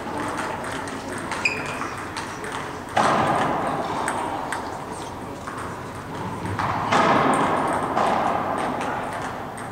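Table tennis balls clicking off paddles and tables in a large, echoing hall, the rallies from several tables overlapping. Two louder echoing bursts rise sharply, one about three seconds in and one near seven, and die away.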